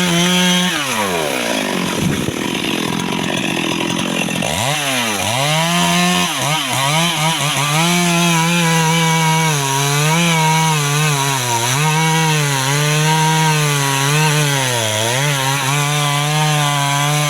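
Chainsaw engine running at high speed while it cuts apricot wood, its pitch sagging and recovering again and again under load. It drops deeply about a second in and again near five seconds.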